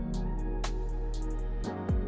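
Background music with a steady beat and sustained bass.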